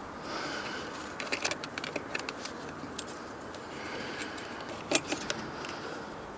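Nylon zip tie being threaded and pulled through its fastening on a plastic motorcycle mudguard: quick runs of small plastic clicks, with one sharper click about five seconds in.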